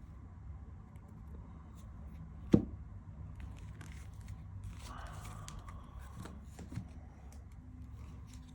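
Miniature tarot cards and their packaging being handled: faint rustling and light clicks, with one sharp knock about two and a half seconds in.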